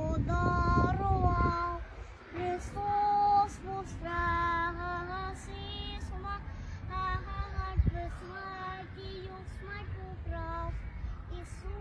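A high voice sings a slow melody in long, held notes that waver slightly in pitch, with a low rumble beneath the first couple of seconds.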